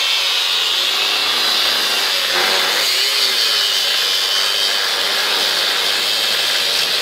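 Handheld angle grinder cutting steel on a locked trailer hitch: a steady, high grinding whine with a hiss that holds level throughout.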